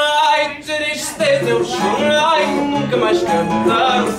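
Live fado played on mandolin and seven-string guitar. A long held note dies away about half a second in, and after a short gap the guitar plucks a walking bass line under a wavering melody.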